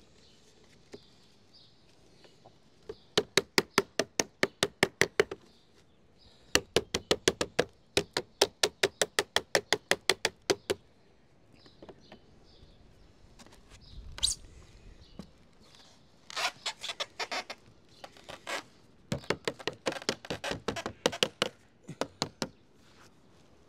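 Sheet lead being dressed into place with a dressing tool: runs of rapid, even strikes, about five a second, in four bursts, with a single knock in between.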